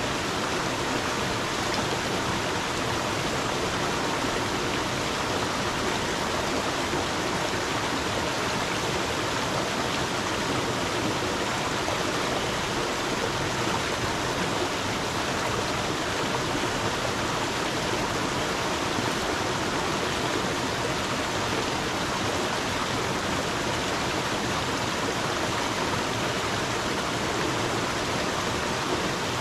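Stream of water flowing and splashing steadily, an even rushing sound with no breaks.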